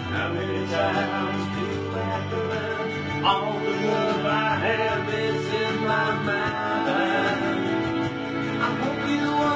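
A song playing: singing over instruments, with a steady beat.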